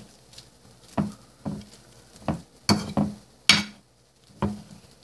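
Metal potato masher mashing beans on a ceramic platter, about eight separate knocks at an uneven pace, the loudest about three and a half seconds in.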